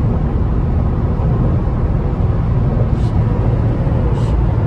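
Steady low drone of road and engine noise inside the cabin of a moving Infiniti Q50 twin turbo.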